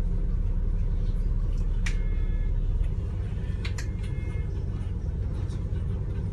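London bus engine rumbling low and steady, heard inside the bus, easing slightly about three seconds in. Two sharp clicks, each followed by a brief faint tone, come about two and four seconds in.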